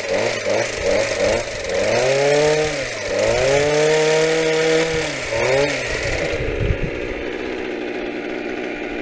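Small gas trimmer engine driving an Echo bush trimmer attachment, revved up and down several times with a longer rev in the middle, then dropping back to a steady idle about six and a half seconds in.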